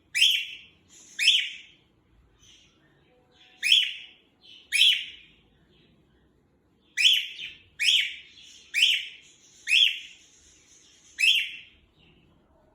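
Male cockatiel giving loud, short contact calls, nine of them in a row, spaced a second or two apart, with a brief pause midway.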